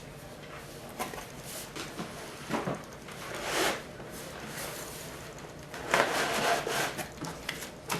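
Cardboard boxes scraping and sliding against each other as inner boxes are worked out of a shipping carton: two longer scrapes, about three seconds in and again about six seconds in, with small knocks between.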